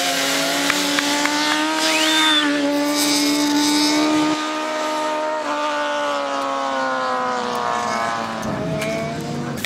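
Sport motorcycle engine held at high, steady revs through a wheelie, its pitch easing down slightly and then dropping near the end as the revs come off.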